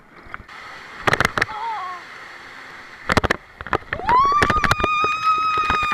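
Riders on an inflatable raft water slide screaming: a short cry about a second and a half in, then a long high scream that rises at about four seconds and is held steady. Under it are a rushing hiss of water and several sharp knocks.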